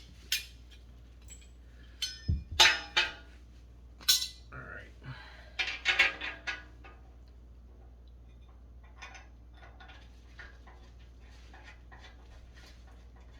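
Steel stove parts and bolts being handled: a run of metallic clanks and clinks over the first several seconds, loudest about two and a half and six seconds in, then only faint light ticks.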